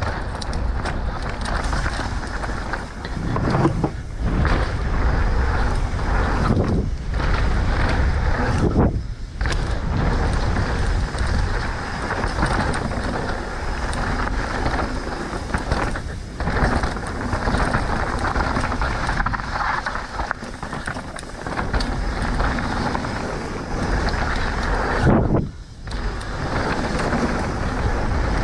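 Mountain bike riding down a dirt flow trail: steady noise of tyres on dirt and wind on the microphone, with a couple of brief lulls.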